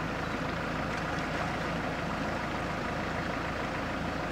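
Steady running of a Land Rover Defender 110's engine, idling while the vehicle sits wedged on a rock midstream.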